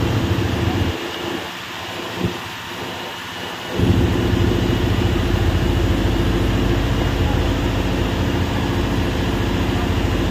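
Fishing boat's engine running steadily under heavy wind rumble on the microphone and the rush of water along the hull; the wind rumble drops away for a few seconds about a second in, then comes back.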